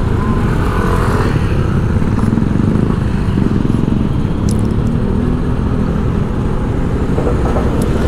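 Motorcycle engine running steadily while riding through street traffic.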